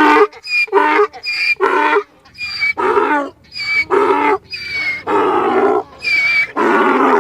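Donkey braying in a long run of rapid repeated calls, more than one a second.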